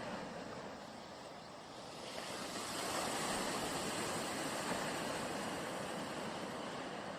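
Steady hiss of background noise with no distinct events; it dips slightly, then grows a little louder about two seconds in.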